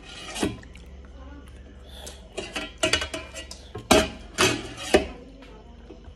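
Spoon and fork clinking and scraping against stainless steel bowls in a string of sharp, ringing clicks.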